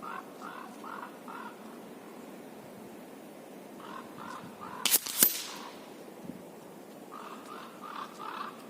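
Crows cawing in short runs of four or five calls, three times over. About five seconds in, two sharp air-rifle shots a third of a second apart, the loudest sounds here.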